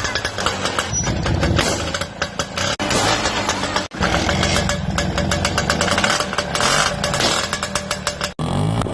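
Classic Lambretta scooter's single-cylinder two-stroke engine running loud through its exhaust, with rapid firing pulses. There are a few sudden brief drops in level.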